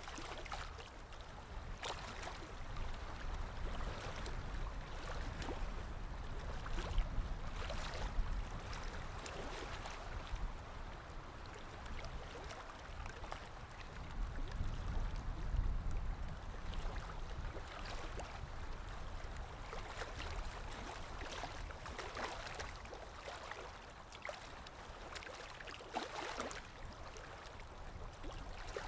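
Water running in a stream, a steady rush with irregular small splashes and gurgles and a low rumble underneath.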